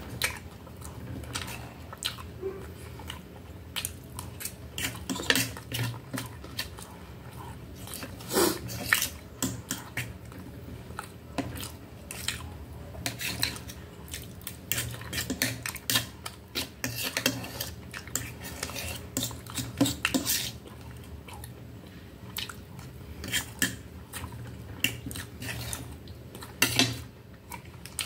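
Fork and knife clinking and scraping on a stainless steel plate in many irregular strokes, with close-up chewing of the food between them.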